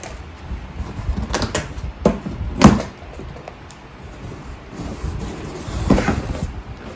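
Objects being handled and set down indoors: a few sharp knocks and clatters, the loudest a little under three seconds in and another near the end, over light rustling.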